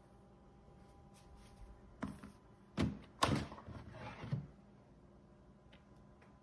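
Several knocks and clunks in quick succession, starting about two seconds in and ending about four and a half seconds in, the loudest two near the middle, over a faint steady hum.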